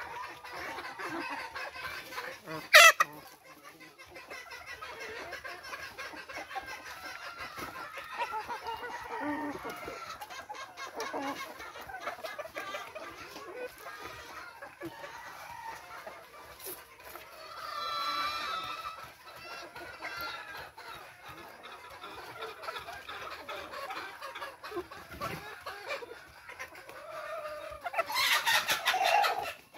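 Chickens clucking continually as they feed, with a sharp click about three seconds in and a louder burst of calls near the end.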